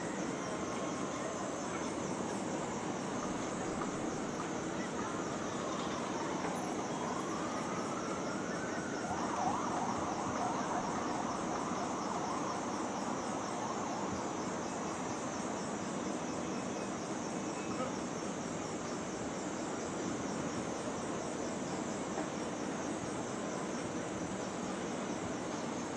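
An emergency-vehicle siren wails up and down in pitch through roughly the first half, over the steady noise of city traffic and crowds.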